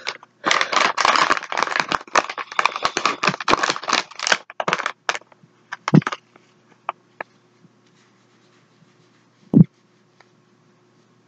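Close rustling, scratching and crinkling of things being handled for about five seconds, then a few scattered clicks and one heavy thump near the end.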